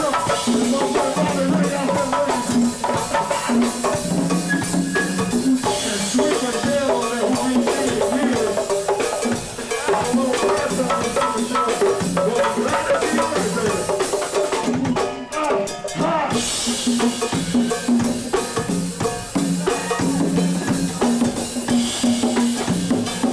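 Live go-go band playing a steady groove, with a pair of congas and a drum kit over a repeating bass line. The sound briefly dulls about fifteen seconds in.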